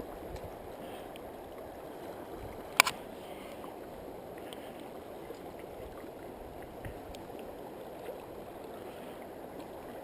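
Steady rush of moving water and wind, with one sharp click a little under three seconds in.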